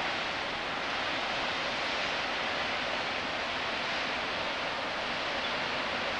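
Steady, even rush of water from Roaring Springs, a spring-fed waterfall gushing straight out of the canyon wall.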